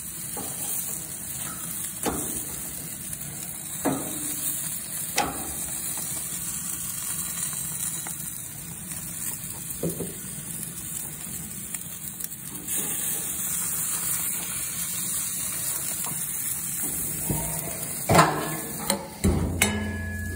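Whole quail sizzling on a gas grill: a steady hiss, with a few light knocks along the way and louder knocks near the end.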